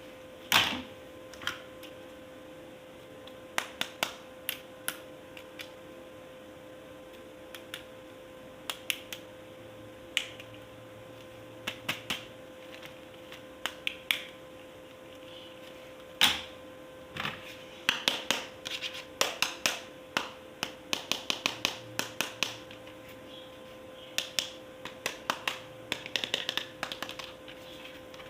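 Plastic toy parts and packaging being handled: irregular sharp clicks and snaps, sparse at first and coming thick and fast in the second half, over a faint steady hum.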